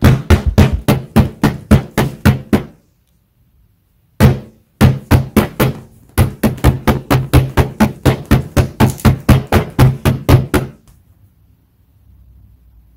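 Rapid tapping, about six or seven knocks a second, in two runs: a short run of about two and a half seconds, then after a pause of about a second and a half, a longer run of some six seconds.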